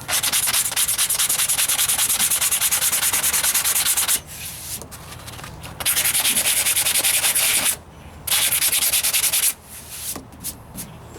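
80-grit sandpaper on a hand sanding block scraping back and forth over body filler and paint on a truck's wheel arch, in rapid strokes. It comes in three bouts with short pauses between, the first about four seconds long.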